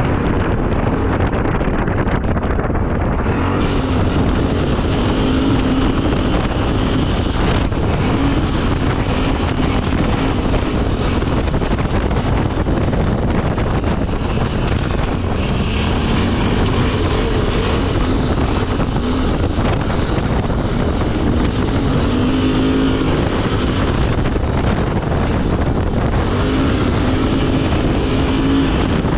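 ATV engine running while riding along a gravel trail, its note shifting up and down with the throttle, with wind buffeting the microphone.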